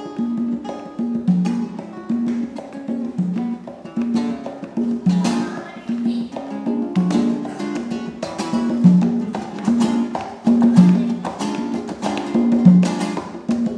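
Acoustic guitar and hand-played congas performing together: the guitar repeats a short figure about once a second while the congas keep up a quick pattern of slaps and open tones.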